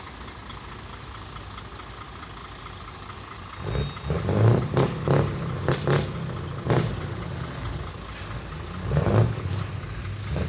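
Heavy truck diesel engines idling in a low rumble; a few seconds in, a truck's engine is revved in a series of short, sharp throttle blips, some close together and some with gaps between them.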